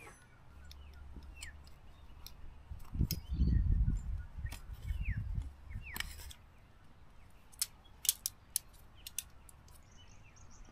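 Outdoor ambience: a few short, falling bird chirps, a low rumble lasting a few seconds in the middle, and several sharp clicks near the end.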